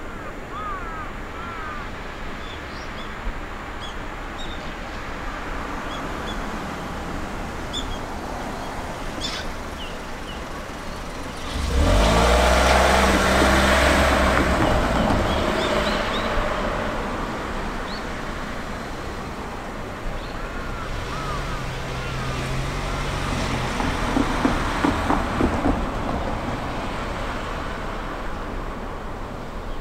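Cars driving over a railway level crossing. One passes close and loud, starting suddenly about twelve seconds in and fading over several seconds. A second car follows around twenty-one seconds in, with a quick run of knocks near twenty-five seconds.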